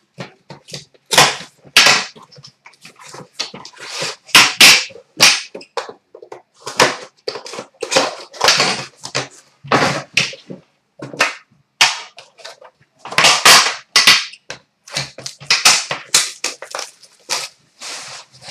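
Loud, irregular bursts of crackling and rustling noise, some short and sharp, others lasting half a second or more.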